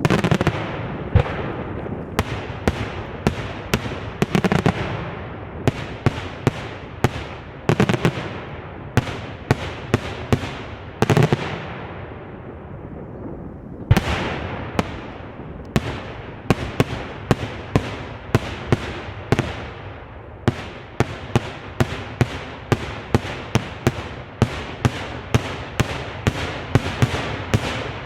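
Fireworks display: aerial shells bursting in a long run of sharp bangs, each with an echoing tail. The bangs come irregularly at first and at about two a second in the second half.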